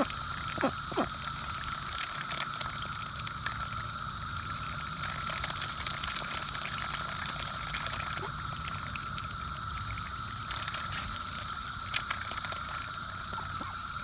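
Ducks dabbling with their bills in a shallow muddy puddle: soft wet splashing and sifting, with a steady high-pitched drone of cicadas behind it.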